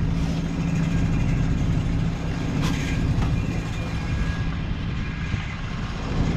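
Fishing boat's diesel engine running steadily: a low, even drone. A couple of short knocks come near the middle.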